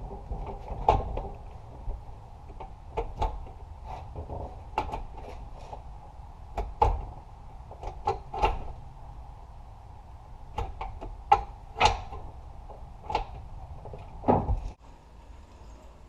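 A dozen or so irregular sharp clicks and clunks from hand work on a Honda Civic's shifter and interior, over a low steady hum that drops away near the end.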